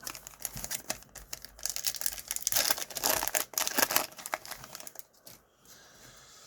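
Wrapper of a Panini Donruss Optic baseball card pack being torn open and crinkled: a dense crackle, loudest in the middle, that dies away about five seconds in.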